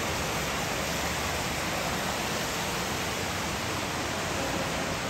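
Steady rushing of running water, an even, unbroken hiss with nothing standing out above it.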